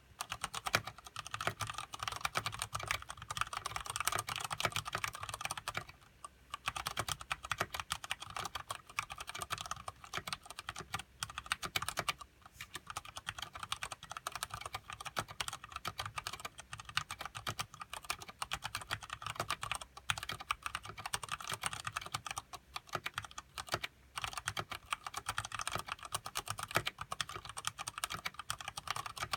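Continuous fast typing on a mechanical keyboard with Cherry MX Brown switches and thick PBT keycaps, a dense run of keystroke clacks with brief pauses about six and twelve seconds in.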